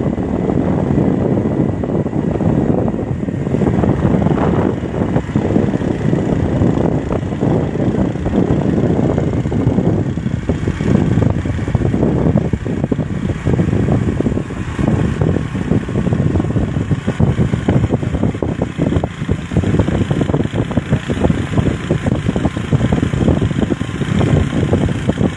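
Steady rumble of a vehicle driving at speed, with rough wind buffeting on the microphone.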